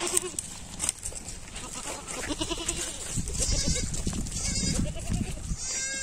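Goats bleating: a wavering call at the start and another about two seconds in, with a higher, shrill call near the end.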